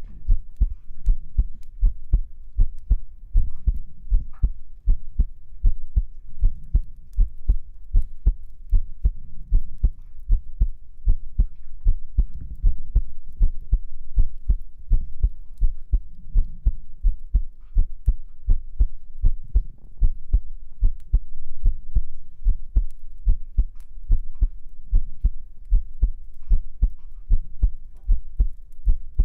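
Human heartbeat heard close up, like through a stethoscope: a steady, regular rhythm of low thumps.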